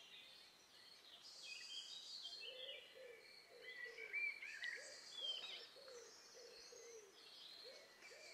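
Quiet birdsong ambience: several birds chirping and singing in short high notes, joined about two and a half seconds in by a low call repeated about twice a second.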